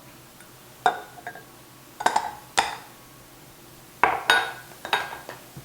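A measuring cup clinking and knocking against a mixing bowl as flour is tipped in: a string of sharp, ringing clinks, in clusters, with a few quiet gaps between them.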